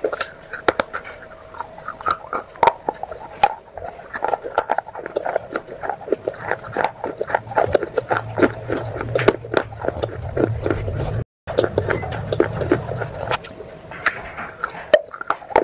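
Close-up chewing and crunching of soaked clay-pot pieces: a quick run of crisp crunches and wet mouth clicks.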